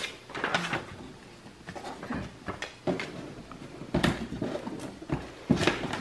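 A cardboard gift box being handled and opened: several short scrapes and knocks of cardboard, with paper rustling between them.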